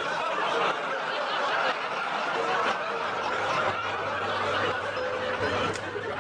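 Studio audience laughing, one long laugh that dies away near the end.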